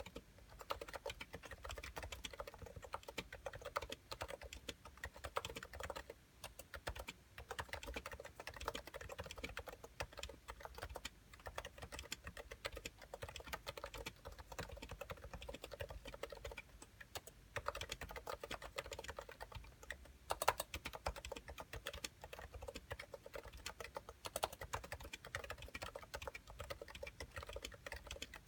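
Fast, continuous typing on a Cooler Master NovaTouch keyboard with 45 g Topre electrocapacitive switches and thick PBT keycaps: a dense run of soft keystroke clicks with a couple of brief pauses.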